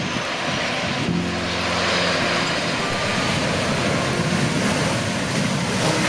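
Jet airliner's engines running loud and steady as a Boeing 737-900ER rolls out along the runway just after touchdown. The sound is a broad, even rush of jet noise. The aircraft's engines are CFM56-7B turbofans.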